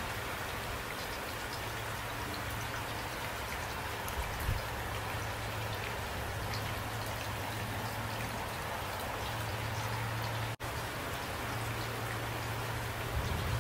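Steady rain falling, an even hiss with scattered drop ticks. The sound cuts out for a split second about ten and a half seconds in.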